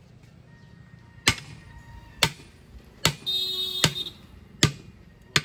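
Hammer blows on a steel bar driven between a truck-size tyre's bead and its steel wheel rim, breaking the bead loose to get the punctured tyre off. About six sharp metallic strikes land one every second or so. A short high ringing tone sounds about three seconds in.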